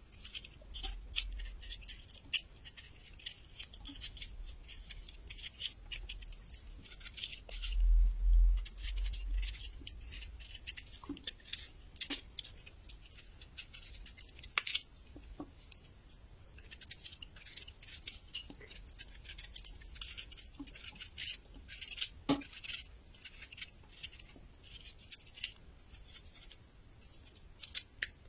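Crisp, close-miked crunching and chewing of raw young ginger: rapid crackles that come again and again throughout. A low, dull rumble about eight seconds in is briefly the loudest sound.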